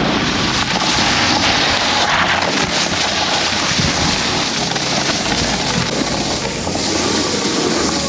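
Wind rushing over the microphone together with the steady hiss of a snowboard sliding through slushy spring snow.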